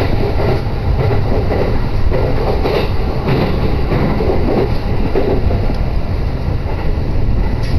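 Passenger train running along the track, a steady loud rumble heard from inside the carriage.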